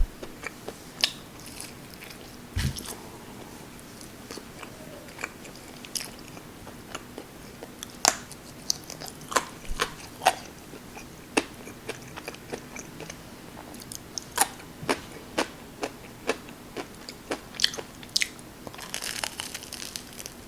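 A person chewing and crunching food, with many sharp, irregular crunches. A brief rustle comes near the end.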